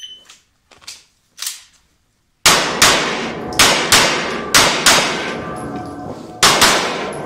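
Smith & Wesson M&P Pro C.O.R.E. pistol fired in quick pairs, eight shots in four double-taps, each shot ringing on in the echo of an indoor range. A few faint knocks come before the first shot.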